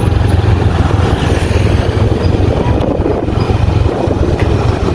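Steady low rumble of a moving motor vehicle: engine and road noise, holding an even level with no pauses.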